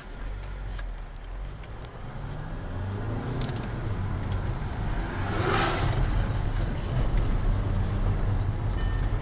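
Škoda Octavia RS engine heard from inside the cabin, pulling steadily as the car drives on snow, getting louder from about three seconds in. A short rushing hiss comes about halfway through.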